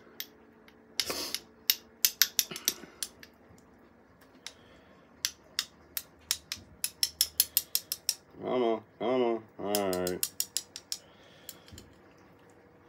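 Quick runs of small sharp clicks and taps as a glass hot sauce bottle is shaken upside down over a metal spoon to get the sauce out. A short wordless voiced sound in three pulls comes about two-thirds of the way through.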